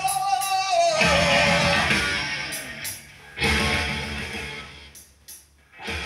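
A song with guitar and vocals playing over a stereo system's loudspeakers during a sound test. The music dips out briefly about three seconds in and almost fades away near the end before coming back.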